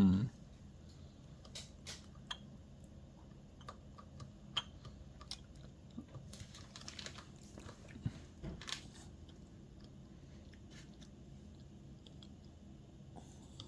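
A baby chewing and mouthing spoon-fed food: faint, irregular little wet smacks and clicks, busiest from about six to nine seconds in.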